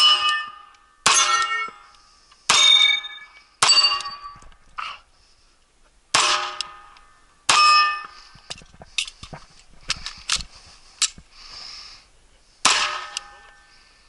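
9mm Sig P226 Mk25 pistol fired at steel plate targets: about seven shots, each followed by the ringing clang of the struck steel, with smaller clicks and knocks between and a pause of several seconds before the last shot.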